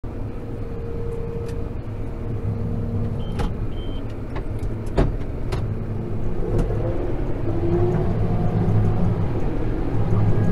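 Tractor engine running steadily, its pitch rising a few seconds in as it picks up revs. A few sharp knocks and two short high beeps sound over it.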